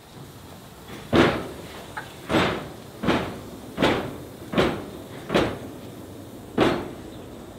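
Harzer Schmalspurbahn narrow-gauge steam locomotive 99 7247-2, a 2-10-2 tank engine, moving off slowly. It gives seven sharp exhaust chuffs from the chimney, about one every three-quarters of a second, with a longer gap before the last.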